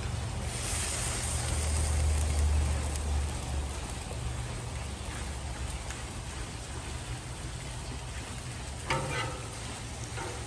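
Steak and onions sizzling on a hot flat-top griddle, with metal spatulas scraping across the griddle as they are mixed. A low rumble sits under the sizzle from about one second to three and a half seconds in.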